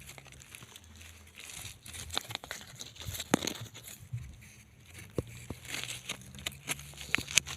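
Irregular crunching and crinkling of dry ground, loose stones and debris being stirred and handled while searching for rocks, with scattered sharp clicks. A faint steady low hum lies underneath.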